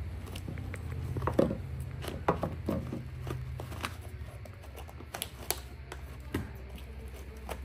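Scattered light knocks, taps and rustles as a baby macaque paws at a plastic bottle and climbs over books on a wooden dresser, over a low steady hum.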